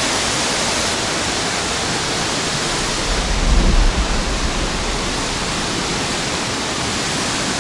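Waterfall rushing steadily. A brief low rumble on the microphone comes about three seconds in.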